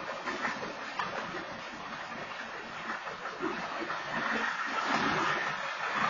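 Freight train cars rolling past through a crossing: a steady, noisy rush and clatter of wheels on rail that grows louder about four seconds in.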